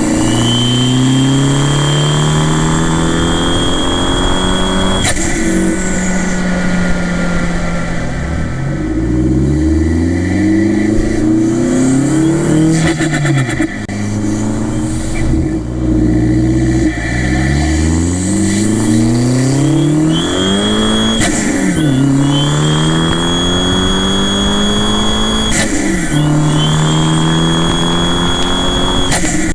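Fiat 500 Turbo's turbocharged 1.4-litre four-cylinder pulling hard at wide-open throttle. The engine note climbs through the gears and drops at each shift, with a high turbo whistle that rises as boost builds and then holds, and a short rush of air as the throttle closes at each change. For a while midway the engine slows and falls in pitch before pulling again.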